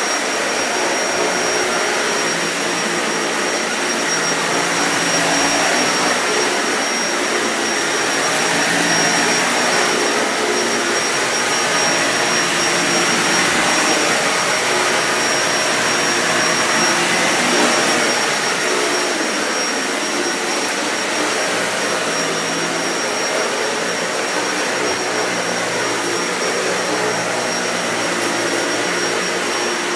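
Dyson Ball Animal 2 upright vacuum cleaner running while vacuuming: a steady motor and airflow noise with a constant high whine, swelling slightly louder through the middle.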